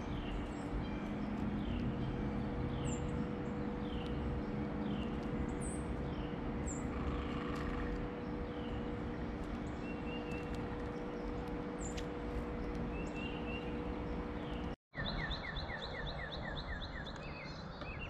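Birds calling outdoors: a short falling chirp repeats about once a second over steady background noise with a faint low hum. About 15 seconds in, the sound cuts out briefly, and then a quick run of short falling notes follows, a trill.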